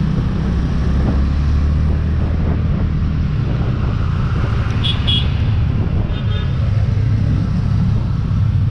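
Motorcycle riding through city traffic at about 30–40 km/h: a steady engine and road rumble. About five seconds in a horn gives two short beeps, and a fainter horn sounds just after.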